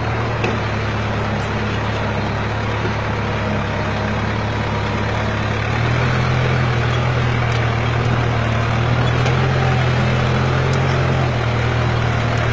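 Ford tractor engine running steadily under load while pulling a disc plough through soil. It grows louder about halfway through and eases back shortly before the end.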